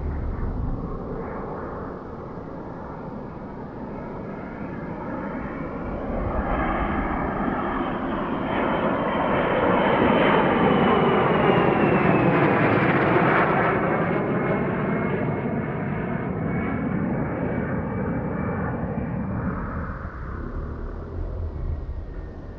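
A model jet's B300F gas turbine flying past: the roar and high whine grow to their loudest about halfway through, then the whine drops in pitch and the sound fades as the jet moves away.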